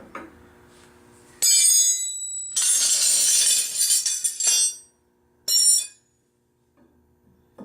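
Steel wrenches clanking and clinking against one another as they are picked through, in three spells, the longest about two seconds, each with a ringing metallic tail.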